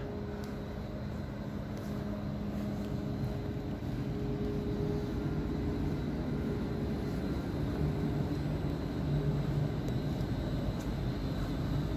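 Steady low hum and rumble of a Serbian Railways class 413 (Stadler FLIRT) electric multiple-unit train standing at the platform with its equipment running, with a few steady hum tones; one of them drops out about three seconds in.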